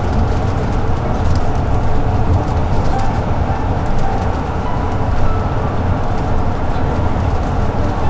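Steady low rumble of a bus's engine and tyres on the road, heard from inside the passenger cabin while it drives along.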